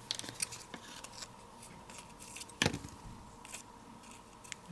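Faint handling sounds of cardstock petals and metal tweezers: light rustles and small taps, with one sharper click about two and a half seconds in.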